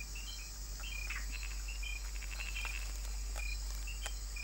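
Night-time forest insect chorus: a steady high-pitched hum with many short chirps repeating at a few slightly different pitches. A few sharp clicks stand out over it, about a second in and again near the end.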